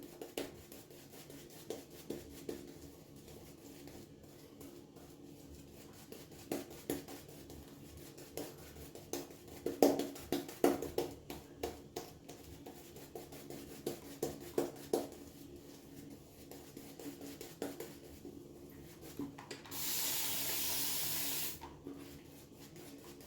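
A shaving brush painting Mitchell's Wool Fat lather around a bowl, soft brushing and rubbing strokes in quick succession. Near the end a spray bottle hisses once for about two seconds, adding water to the lather.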